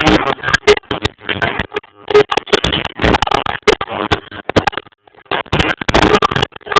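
Live reggae concert music picked up by a phone's microphone, badly distorted and breaking up into choppy bursts with clicks and brief dropouts.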